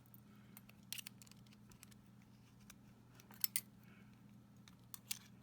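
Faint, sharp metallic clicks of a small tool working the circlip off the back of a Mul-T-Lock euro lock cylinder: a few scattered clicks, the loudest pair about three and a half seconds in.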